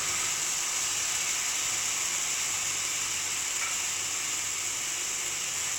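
Chopped tomato frying in hot oil with onions and ginger-garlic paste in a pan, giving a steady sizzle.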